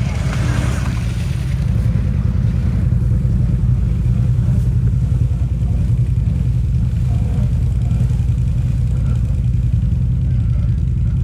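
ATV engine running steadily under load as the quad is driven through deep creek water, with water splashing loudly in the first two seconds.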